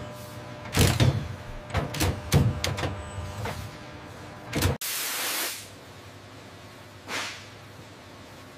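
An automated wing-fastening machine clicking and knocking over a low hum. After an abrupt cut, there is a burst of air hiss, then a shorter hiss about two seconds later.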